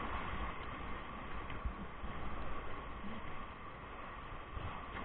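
Whitewater rapids rushing steadily around a paddle raft, with a few short low thumps.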